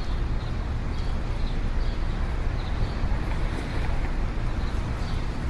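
City street ambience: a steady low rumble of traffic, with faint short high chirps recurring through it.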